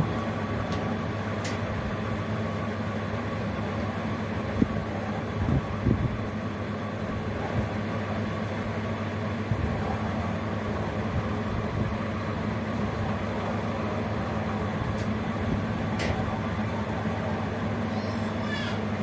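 Steady mechanical hum, with a few faint clicks.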